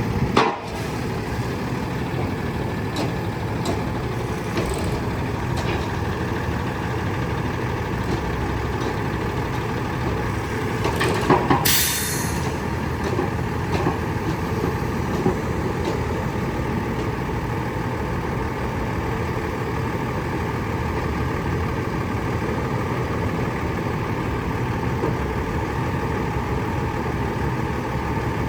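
Diesel engine of a Freightliner M2 truck running steadily, with a short sharp sound just after the start and a brief burst of air hiss from the truck's air system about twelve seconds in.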